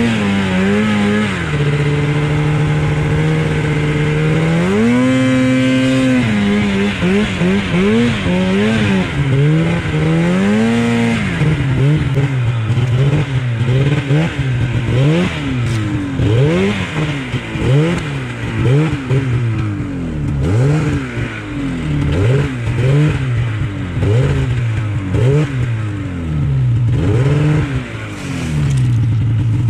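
Mountain snowmobile's two-stroke engine working through deep powder, held fairly steady at first, then revved up and let off again and again in quick throttle blips through the second half, settling back to a steady run near the end.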